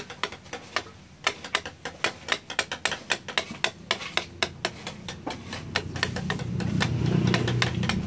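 Wood carving by hand: a wooden mallet tapping a chisel into wood, short sharp knocks at about four a second. A low engine hum swells in over the second half and is loudest near the end.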